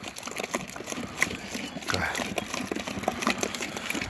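Wooden slat stirring runny cement slurry in a bucket, with quick, irregular scraping and knocking against the bucket.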